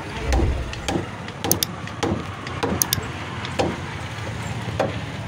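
A heavy knife chopping through fish on a cutting block: a series of sharp, irregular knocks, about one every half second, over a steady low background hum.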